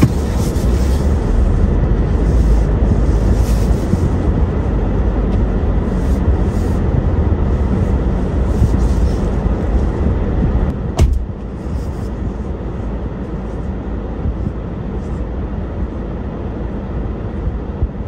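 Low, heavy rumble inside the cabin of a Toyota Hilux creeping through deep snow. There is a sharp click about eleven seconds in, and the rumble is quieter after it.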